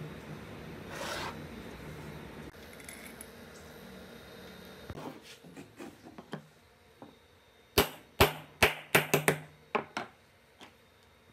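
Sharp metal-on-metal knocks: a steel pipe slipped over an electric fan motor's rotor shaft is knocked down to seat a ball bearing, with the rotor standing on a steel block. A few light taps come first, then a quick run of about eight hard knocks in two seconds near the end.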